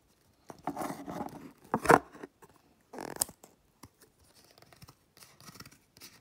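Scissors cutting into a thick cardboard trading card: a few loud snips in the first three seconds, the sharpest about two seconds in, then fainter scraping and rustling.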